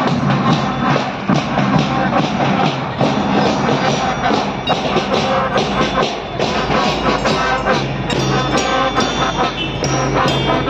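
School marching band playing: bass and snare drums beating a steady march with brass bugles sounding, the bugles coming in more strongly near the end.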